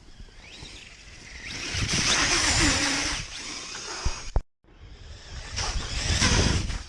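Battery-powered Traxxas Slash RC truck hydroplaning across a water-filled ditch, its tyres throwing up a rushing hiss of spray. It makes two passes, the second about three seconds after the first, split by a sudden brief silence.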